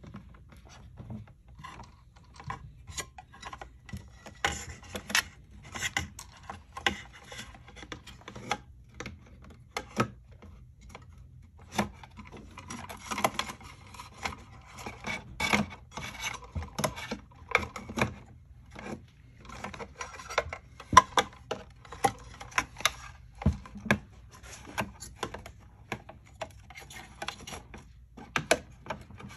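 Hands fitting a black metal frame back into place over a battery and cables: rubbing, scraping and irregular clicks and knocks of metal parts and cable against each other, busiest about halfway through.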